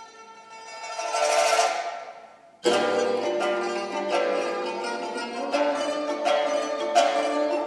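Guqin and pipa playing a duet: soft ringing plucked notes, a swell that rises and dies away, then a sudden loud attack about two and a half seconds in that opens a busy passage of quick plucked notes.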